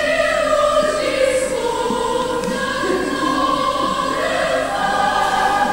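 A woman singing slow, long-held notes, the pitch sliding from one note to the next.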